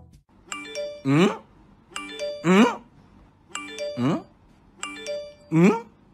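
A short chime of stepped notes followed by a kitten's gliding meow, repeated four times at even intervals about a second and a half apart, like an edited loop.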